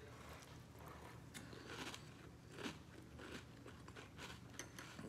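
Faint, scattered crunches of a person chewing Cap'n Crunch Cinnamon Bolts cereal in milk.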